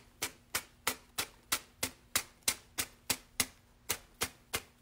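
Quick, short strokes of sandpaper against the edge of a wood round, about three a second with a brief pause near the end, cutting away the excess decoupaged napkin paper cleanly along the edge.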